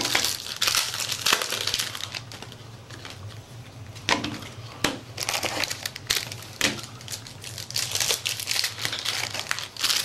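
Foil trading-card pack wrappers crinkling as packs are torn open and handled. The crinkling comes in irregular bursts, with a quieter stretch about two to four seconds in.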